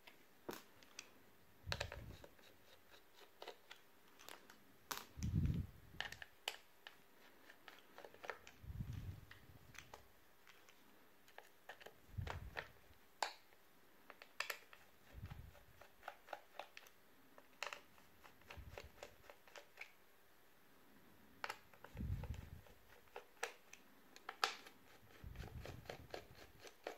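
Small Torx screwdriver working the tiny screws out of a sat-nav's plastic back casing: faint, irregular small clicks, with a few soft knocks from the device being handled.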